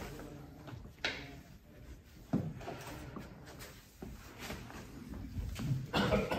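Scattered knocks and handling clatter as a push broom is worked on a concrete floor and set aside. The sharpest knock comes about two and a half seconds in, and a louder cluster of knocks comes near the end.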